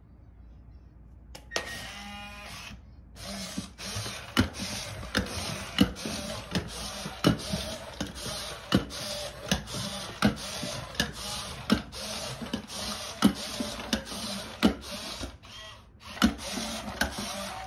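i-Cybie robot dog walking on a wooden floor: its geared leg motors whir while its hard plastic feet tap down about every 0.7 s. A brief pitched sound comes before the walking starts.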